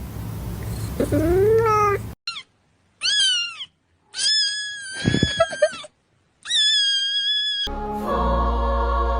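Cat meowing: a rising meow about a second in, then a run of short, high meows separated by gaps of silence. Music starts near the end.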